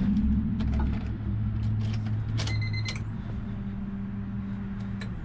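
Ignition switched on in a 2000 Honda Civic: the in-tank electric fuel pump primes with a steady low hum, with a few light clicks and a short beep about halfway through, then a higher steady hum near the end. The pump is delivering no fuel to the disconnected line.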